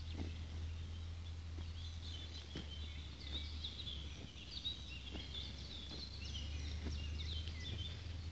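Several small birds singing and chirping over a steady low rumble, with a few soft footfalls here and there.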